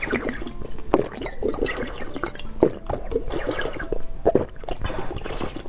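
Wet dripping and squishing of soft jelly candy being handled, a string of irregular small plops and clicks.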